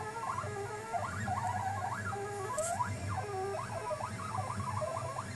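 Stepper motors of a hobby CNC machine burning an image, whining in short tones that keep jumping and gliding up and down in pitch as the head makes quick moves back and forth, over a low hum.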